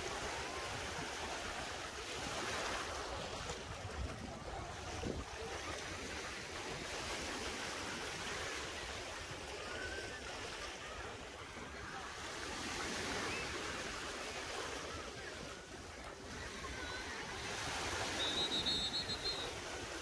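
Sea waves washing onto a beach, the surf swelling and falling back every few seconds. A brief high-pitched tone sounds near the end.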